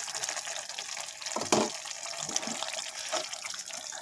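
Thick curry gravy with peas and paneer simmering and sizzling in a pan, stirred with a steel ladle. A few louder strokes of the ladle against the pan, the loudest about a second and a half in.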